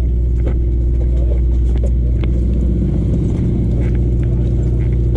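Sportfishing boat's engine running steadily, a low droning hum with a few faint ticks over it.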